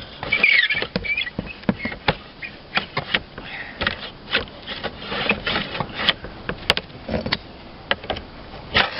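Steel slate ripper and slate shingles scraping and clicking as a stuck slate is worked at, with a squeal about half a second in; the slate won't budge.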